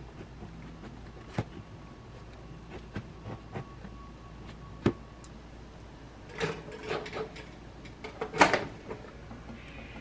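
Knife and bread handling on a plastic cutting board, with a few light knocks and clicks. After that come short scraping and rustling noises as ciabatta halves are pushed into the slots of a stainless-steel toaster, the loudest near the end.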